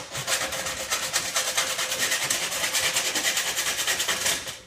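Hand hacksaw cutting through metal cable tray in rapid, even strokes: a steady rasping of blade on steel that starts suddenly and dies away near the end.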